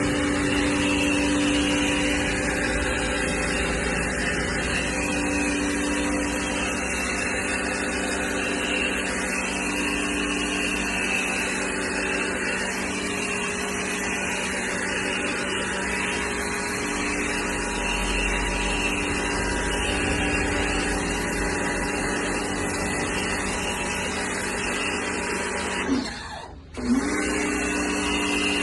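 Kawasaki HPW302 pressure washer running steadily with a constant motor and pump hum. It cuts out briefly near the end, then starts up again.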